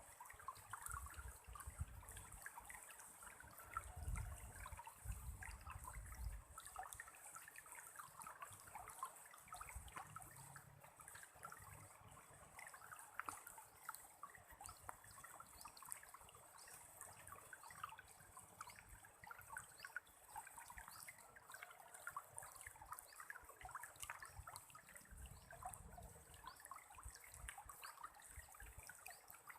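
Faint trickling water, with low rumbles a few seconds in and again near the end.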